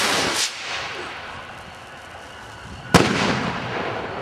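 Aerial firework shell: the tail of the mortar's lift blast and whoosh at the start, then about three seconds in a single sharp bang as the shell bursts overhead, dying away over about a second.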